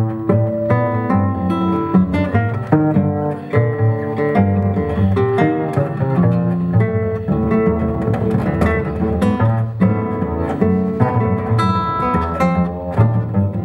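Jazz duo of acoustic guitar and double bass playing live: the guitar picks quick melodic lines and chords while the bass is plucked underneath.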